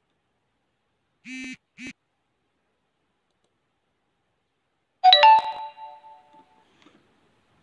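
A bell-like chime about five seconds in: two quick strikes whose several ringing tones fade over about a second and a half. Two short, flat-pitched buzzy tones come earlier, about a second in.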